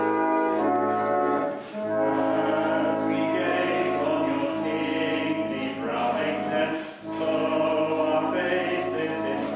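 A hymn sung by a church congregation over held, sustained chords, with brief breaks between lines about 1.7 and 7 seconds in.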